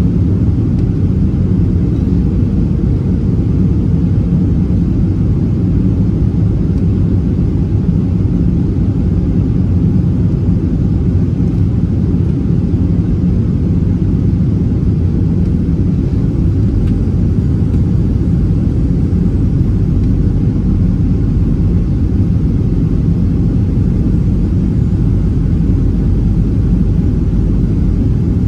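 Cabin noise of a Boeing 737-700 on approach, heard from a window seat over the wing: a steady low rumble of the CFM56 engine and the airflow past the fuselage.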